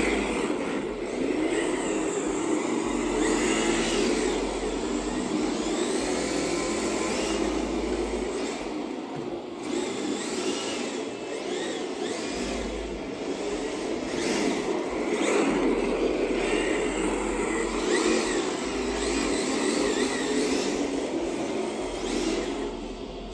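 Radio-controlled drift car's motor whining, its pitch rising and falling again and again as it is throttled through drifts.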